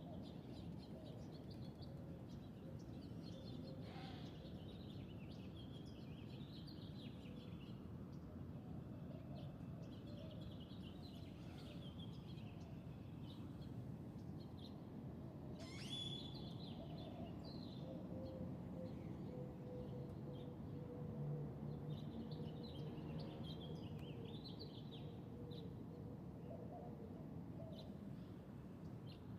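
Birds singing at dawn: scattered chirps and short warbling phrases over a faint, steady low background rumble, with one sharper call about halfway through.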